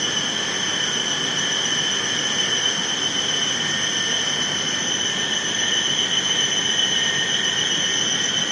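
CNC lathe cutting 1.4305 stainless steel: a steady high-pitched whine of several tones over an even hiss.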